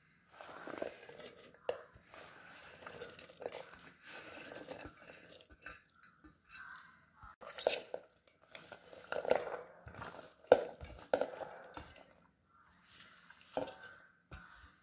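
Chopped vegetables being scraped by hand off a steel plate into a pressure cooker: soft thuds and rustling scrapes, with a few sharper knocks of the plate against the cooker's rim around the middle.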